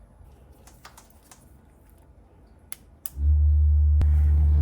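A few light clicks, then about three seconds in the office chair's lumbar vibration massager switches on and buzzes with a steady low hum.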